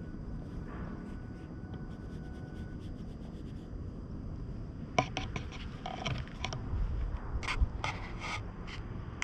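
Rubbing and scraping noises close to the microphone over a low wind rumble. A handful of sharp clicks and rustles come in two clusters in the second half.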